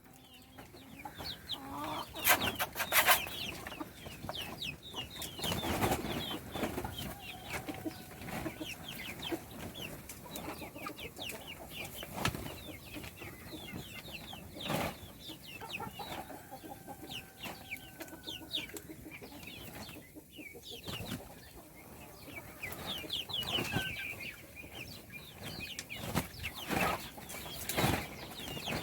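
A group of baby chicks peeping continuously, many short high chirps that slide downward in pitch. Sharp taps and knocks are scattered among them, the loudest a cluster about two to three seconds in.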